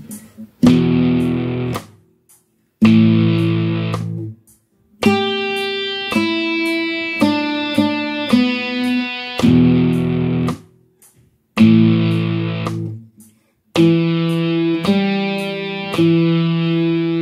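Guitar playing slow two-string power chords, each struck and let ring, with short silences between them, then a run of single picked notes in the middle and ringing chords again near the end. Faint high clicks keep the beat throughout.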